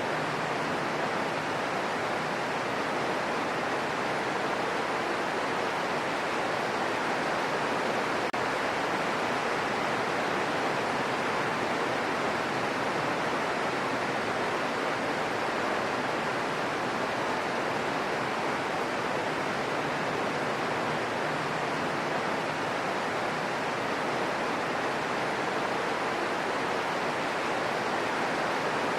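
Steady rain falling in a forest, an even hiss with no single drops standing out.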